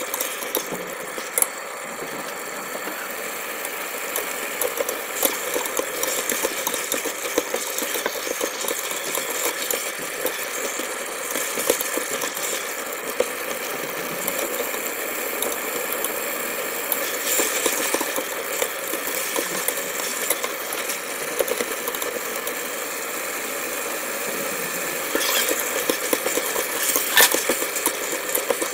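Duck pieces stir-frying in a stainless steel pot on an induction cooktop: a steady sizzle and hum, with utensils clinking and scraping against the pot as the meat is turned, and a busier cluster of clinks near the end.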